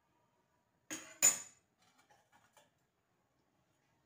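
Two sharp metallic clinks of steel kitchenware, a steel spoon knocking against a steel pot, about a second in; the second is louder, with a brief high ring. A few faint light clicks follow.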